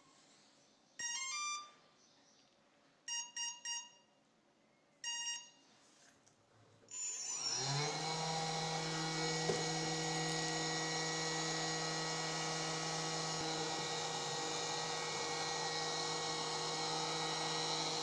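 The start-up beeps of a brushless motor's ESC, sounding through the motor: a short rising run of tones, then three quick beeps, then one more. About seven seconds in, the brushless motor of a homemade battery-powered vacuum cleaner spins up with a rising whine and then runs steadily.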